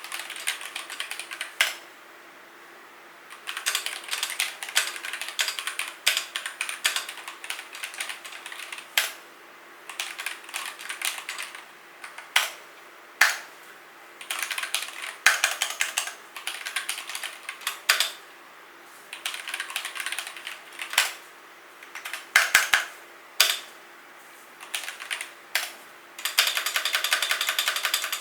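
Typing on an E-Dra EK368W compact hot-swap mechanical keyboard: runs of quick keystrokes broken by short pauses, with a few single louder strokes and a dense, fast flurry of key presses near the end.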